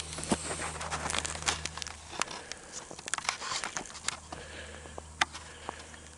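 Irregular light crackling and rustling clicks, with a low steady hum that stops about two seconds in.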